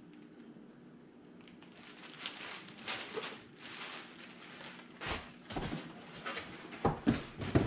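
Plastic poly bags crinkling as they are handled, then a cardboard box tipped and shifted on a table, with several dull knocks, the loudest near the end.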